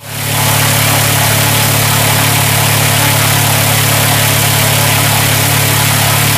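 Fixed-wing drone's propeller engine running steadily: a loud, even low hum with a strong hiss over it.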